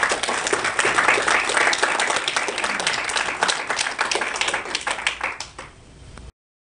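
Small audience of a few dozen people applauding at the end of a talk. The clapping thins out about five seconds in, and the sound then cuts off abruptly.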